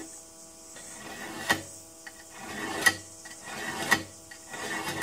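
A steel scriber scratching marking lines into a 5 mm stainless steel plate along a steel rule: several short scraping strokes, three of them ending in a sharp click.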